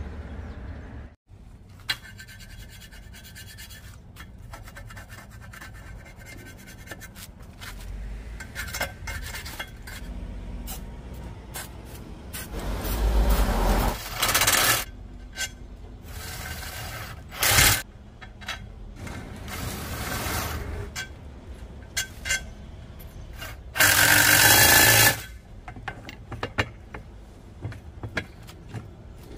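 Tool work fitting a hydrofoil to an outboard motor: filing and scraping with scattered clicks and knocks, broken by a few short, louder bursts, the longest lasting about a second near the end.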